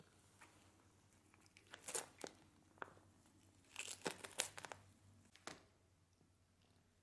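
Paper gift wrapping crinkling and tearing in short, scattered crackles as a cat bites and claws at it. The loudest bursts come about two seconds in and again around four to four and a half seconds.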